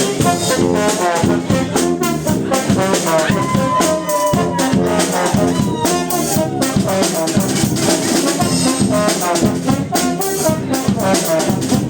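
Live brass band (fanfare) playing: several brass instruments together over a steady percussion beat.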